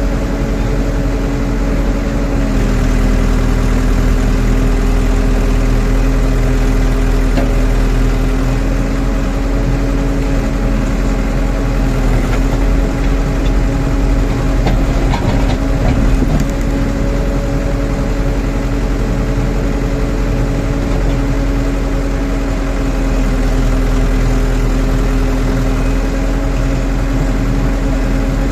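Rondon backhoe loader's diesel engine running steadily, its pitch dipping slightly a couple of seconds in, with a few short knocks about halfway through.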